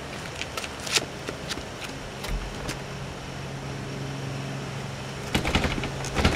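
Scattered footstep taps on a walk and steps, then, about five seconds in, a quick run of clicks and rattles as a front-door lever handle is jiggled against its lock. A steady low hum runs underneath.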